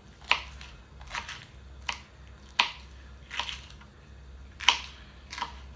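A kitchen knife chopping hot peppers on a plastic cutting board: seven short knocks of the blade against the board, irregularly spaced about a second apart, the loudest one near the end.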